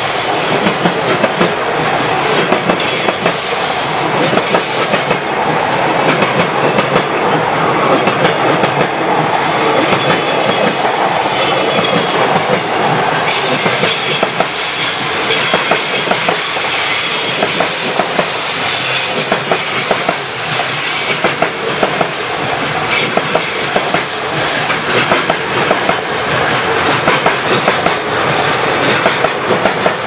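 JR Freight container wagons rolling past close by: a continuous clatter of wheels over rail joints, with a high wheel squeal that comes and goes.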